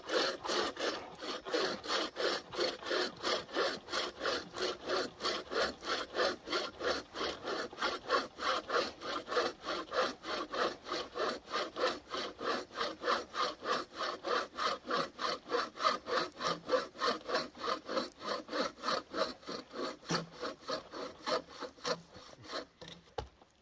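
Hand saw cutting through wood in steady, even back-and-forth strokes, about three a second, stopping near the end.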